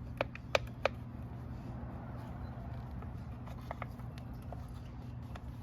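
Hand work on a motorcycle's engine side cover: three sharp clicks or knocks in the first second, then a few lighter ticks, over a steady low hum.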